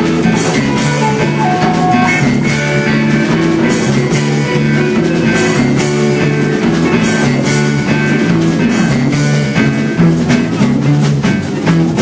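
Live rock band playing a loud jam on electric guitar, keyboard and drum kit.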